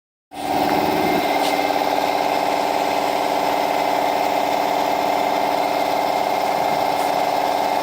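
A motor-driven machine running steadily with a dense, rapid buzz.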